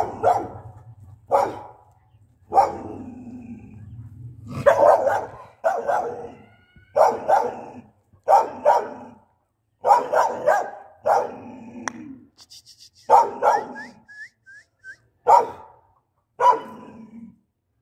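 Dog barking aggressively, about a dozen loud barks with a second or so between them.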